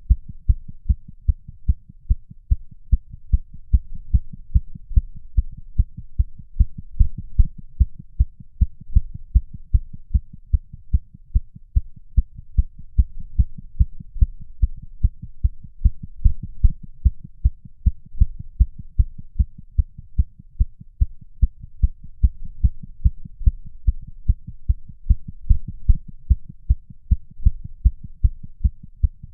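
Artificially created rapid heartbeat sound effect: a fast, even run of deep, low thudding beats.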